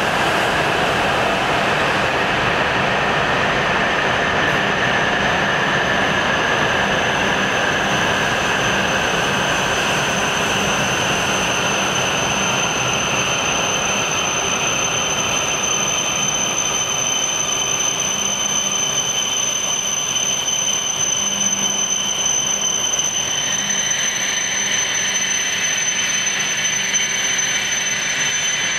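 Hokuriku Shinkansen train running, heard from inside a passenger car: a steady rush of wheel and air noise with a faint high whine. The sound changes in character about three-quarters of the way through.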